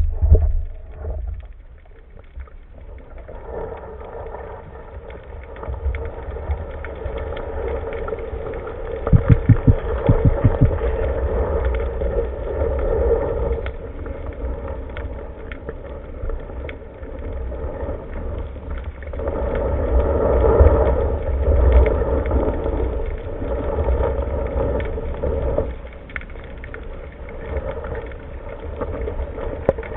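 Underwater ambience picked up by a camera in its housing: a steady rushing hum with low rumble, swelling and easing, and a quick run of knocks about nine to eleven seconds in.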